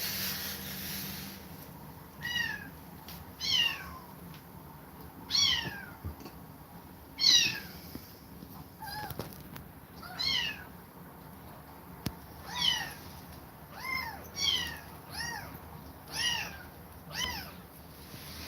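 A kitten meowing over and over: about a dozen short, high-pitched calls that fall in pitch, roughly one a second.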